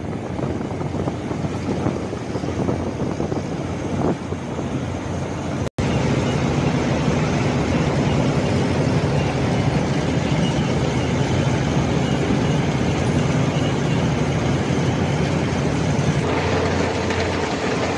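Engines of heavy machinery working coal in a ship's hold, running steadily. The sound drops out for an instant about six seconds in and comes back louder, with a steady low engine hum.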